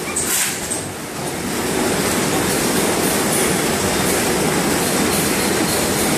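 Automatic mooncake packing line running: conveyors and a horizontal pillow-packing machine making a loud, steady mechanical noise.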